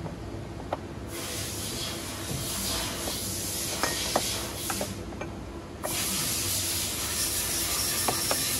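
Light metallic clicks and taps of head stay brackets being fitted and bolted to a dirt bike's cylinder head and frame. Two spells of steady hiss of a few seconds each start and stop abruptly over it, and they are the loudest sound.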